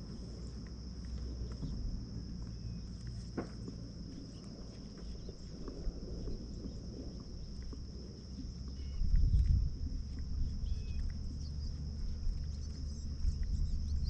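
Outdoor ambience: a steady high-pitched hum with a few faint chirps over a low rumble, which swells loudly for about a second around nine seconds in.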